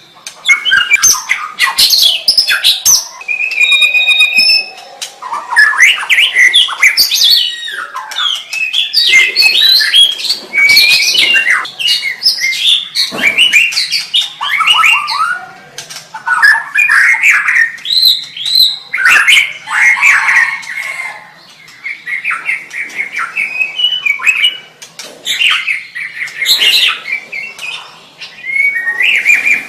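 White-rumped shama (murai batu) singing loudly: a long run of varied, rapid whistled phrases with sweeping notes, mixed with harsher chattering notes, broken by short pauses.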